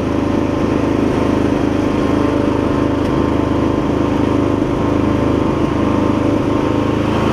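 The 20 hp V-twin engine of an MTD Lawn Chief garden tractor running at a steady speed while the tractor drives slowly along.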